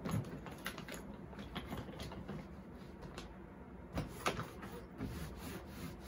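Hard-shell plastic suitcases being handled and wiped with a cloth: scattered light clicks and knocks, with two sharper knocks about four seconds in.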